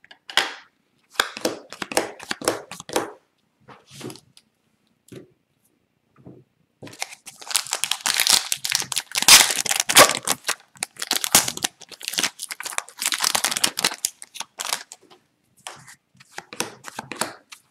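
Trading cards being handled and shuffled with light rustles and clicks, then, about a third of the way in, the wrapper of an Upper Deck hockey card pack being torn open and crinkled for several seconds before the handling of loose cards resumes.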